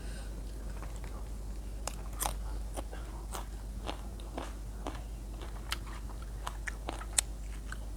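A person chewing crunchy raw vegetables, close to the microphone: irregular crisp crunches a few times a second.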